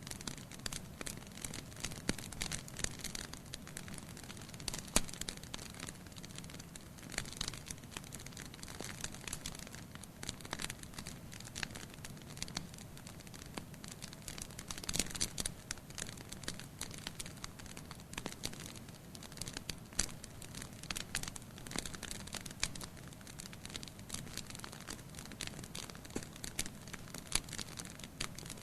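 Firewood burning in a fireplace, crackling with frequent sharp irregular pops and snaps over a low, steady rush of flame. There is a denser run of crackles about halfway through.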